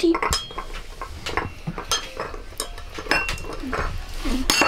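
A teaspoon clinking irregularly against a china teacup as tea is stirred: quick light taps, a few with a brief bright ring near the end.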